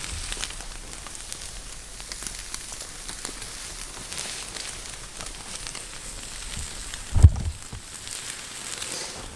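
A hot campfire crackling and hissing, with faint scattered pops. A single dull, low thump about seven seconds in.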